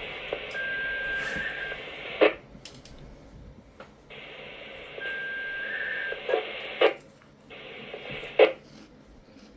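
Radio scanner receiving outdoor warning siren telemetry: short bursts of static, two of them carrying a steady beep that warbles briefly at the end, each burst cut off by a sharp squelch click.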